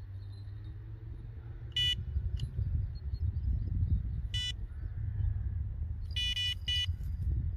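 Electronic bite alarm on a fishing rod beeping four times: single beeps about two and four and a half seconds in, then two quick ones near the end. This signals a bite on the freshly cast eel rig, though the angler allows it may only be the lead weight shifting on the bottom.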